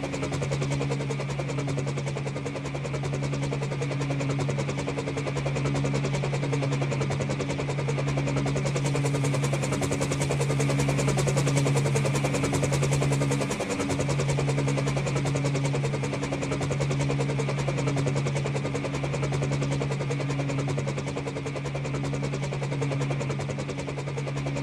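Helicopter running steadily overhead: a continuous low drone of the rotor and engine with a rapid, even chop.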